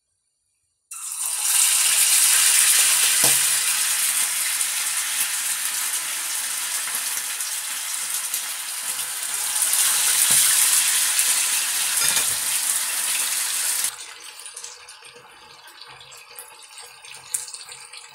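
Marinated pork ribs frying in hot oil in a stainless steel pot: a loud, steady sizzle that starts suddenly about a second in as the ribs go in. The sizzle drops to a quieter level about 14 seconds in.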